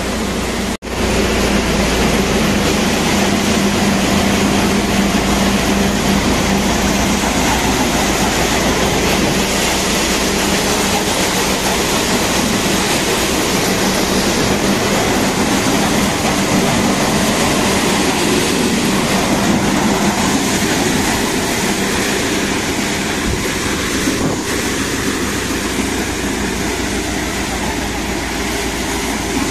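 Five-fan paddy thresher driven by a Mahindra 295 tractor, running loud and steady on full load as rice bundles are fed in. The sound cuts out briefly less than a second in.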